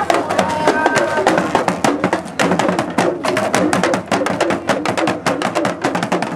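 Dagomba drum ensemble playing a fast, dense dance rhythm on hand-held drums struck with sticks.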